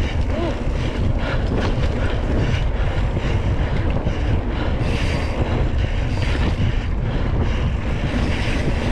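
Wind buffeting the microphone over the rumble and rattle of a single-speed Surly Krampus mountain bike being ridden hard over a rough dirt trail, with many small clatters from the bike jolting.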